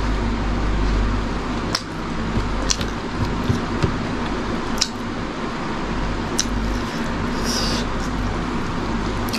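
A person eating by hand: a handful of sharp, wet mouth clicks and smacks while chewing, and a brief hiss as food goes to the mouth near the end. A steady background hiss and hum runs underneath.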